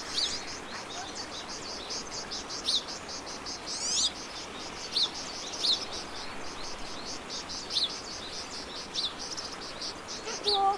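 Outdoor insect and bird chorus: a high insect call pulsing steadily about three times a second, with a bird repeating a short downward chirp every second or so.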